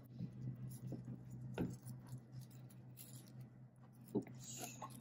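Faint crinkling and soft taps of dry roasted seaweed (nori) sheets being folded and pressed by hand on a plastic cutting board. There is a sharper tap about a second and a half in, over a steady low hum.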